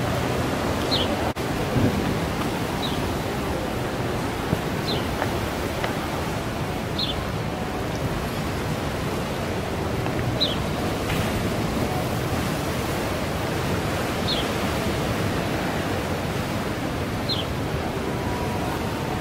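Steady rush of ocean surf, with faint short high chirps every few seconds.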